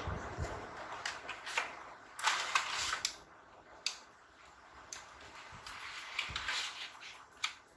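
Handling noise from a plastic crayon box: scattered clicks and short scrapes as it is moved and slid across a paper chart.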